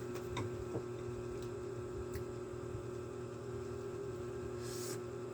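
Steady low hum with a few faint clicks, and a short hiss near the end.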